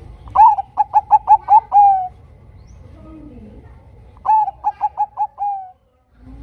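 Zebra dove (perkutut, Bangkok strain) singing: two rapid cooing phrases, each a quick run of short clipped notes ending in one longer drawn-out note.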